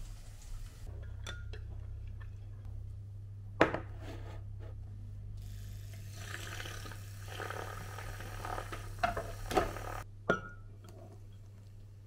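Handheld battery milk frother whirring as it whips milk in a glass mug, over a steady low hum, with a few sharp clinks of glass and spoon.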